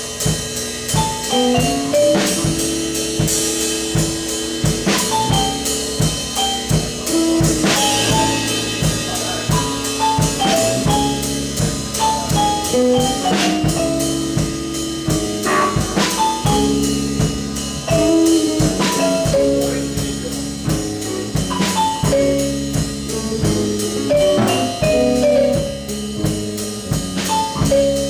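Band improvising on drum kit, bass and a lead instrument: a steady drum beat under sustained bass notes, with the lead playing short runs of stepping notes.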